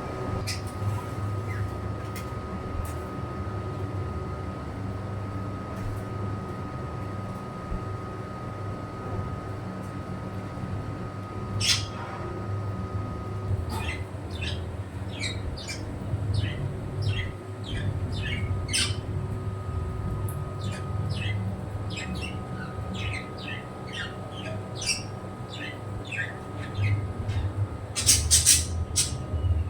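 Pet birds calling: a quick run of short high chirps through the middle, with louder squawks about twelve seconds in and again near the end. A steady low hum runs underneath.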